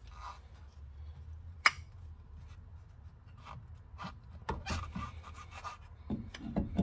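Metal clicks and knocks of a disc-brake caliper and its pads being handled and pushed over the rotor, with one sharp click about two seconds in and a run of knocks near the end. The caliper is not sliding on, which the owner puts down to the piston having crept out of its bore.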